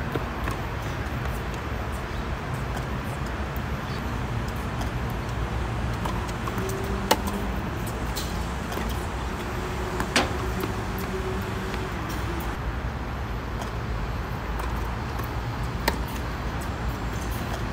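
Tennis ball struck by rackets during a rally on a hard court: a few sharp, single hits several seconds apart. Beneath them a steady low rumble.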